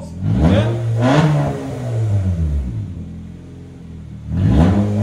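Straight-piped 2011 Honda CR-Z's 1.5-litre four-cylinder engine revved through an open exhaust with the muffler and resonator deleted. Two quick blips, then it falls back to a steady idle, then another sharp rev near the end.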